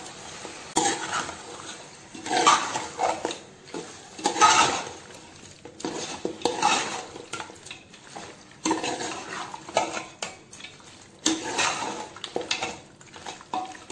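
Long metal spoon stirring a thick, wet mutton and curd masala in a metal cooking pot, scraping and clinking against the pot's sides and bottom in repeated strokes about every second or two.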